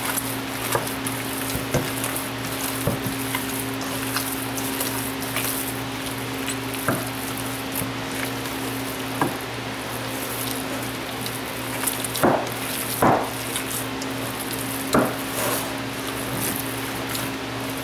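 Hands kneading raw ground beef and Italian sausage with marinara sauce in a stainless steel bowl: continuous wet squelching and squishing, with a few louder squelches in the second half, over a steady low hum.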